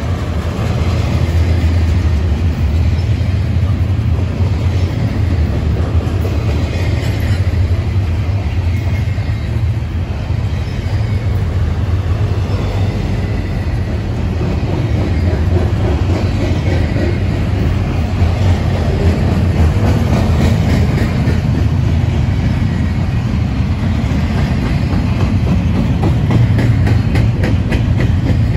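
Double-stack intermodal container train rolling past on its well cars: a steady, loud rumble of steel wheels on rail, with a run of rapid clicks near the end.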